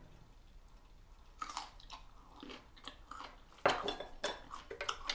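Close-up eating sounds: a mouthful of grilled vegetable being bitten and chewed, with moist crunchy clicks. They start about a second and a half in, and the sharpest crunch comes near the end.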